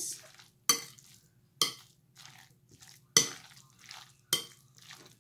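A spoon stirring chicken salad in a glass mixing bowl: four sharp clinks against the glass, spaced about a second apart, with soft scraping between them.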